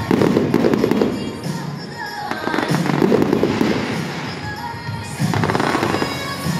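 Aerial fireworks bursting and crackling in three dense waves: at the start, in the middle and near the end. Music plays underneath.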